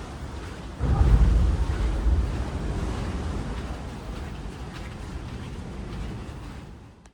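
Ocean surf with wind buffeting the microphone. A louder surge comes about a second in and fades over the next few seconds, then the sound cuts off abruptly at the end.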